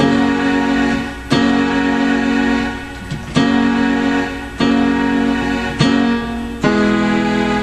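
Keyboard chords played in a gap between sung lines, a new chord struck every one to two seconds and left to ring.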